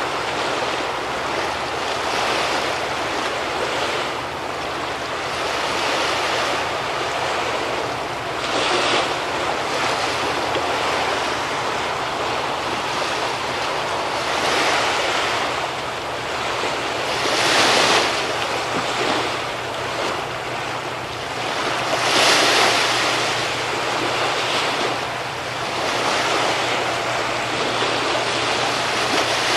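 Sea waves washing and breaking on the shore in repeated surges every few seconds, the largest about halfway through and again a few seconds later. A low steady hum, the engine of a passing ferry, runs underneath.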